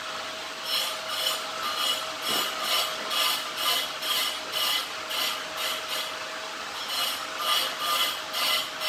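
Hand scraping or rubbing on a blue PVC water pipe: even back-and-forth strokes, about three a second, with a short pause about six seconds in.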